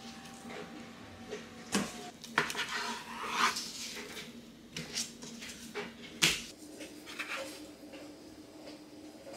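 A kitchen knife cutting a raw salmon fillet on a wooden cutting board: about four sharp knocks of the blade on the board, the loudest about six seconds in, with soft handling sounds of the fish in between, over a faint steady hum.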